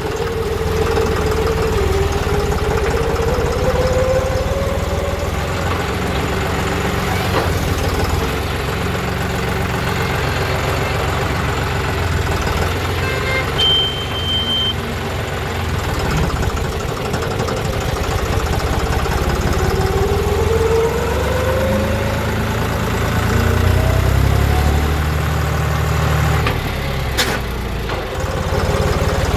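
John Deere 5210 tractor's three-cylinder diesel engine running steadily on the road, its pitch rising twice as the tractor picks up speed. A single sharp click near the end.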